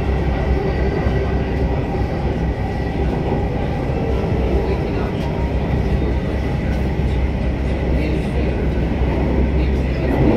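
Delhi Metro train running: a steady low rumble with a thin, even whine above it.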